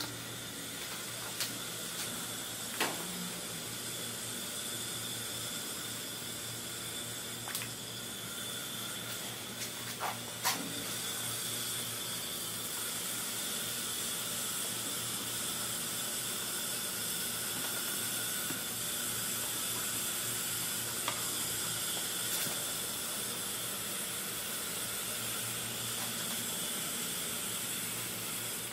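Steady hiss of compressed air through an electrostatic powder coating gun as it sprays powder, with a few short sharp clicks.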